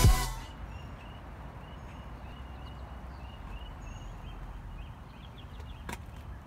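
Intro electronic music cuts off at the start. Then there is open-air background: birds calling with short, repeated chirps over a steady low rumble, and a single sharp click about six seconds in.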